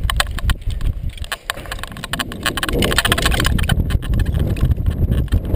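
Strong wind buffeting a body-worn camera's microphone with a heavy low rumble, over a rapid run of clicks and rattles.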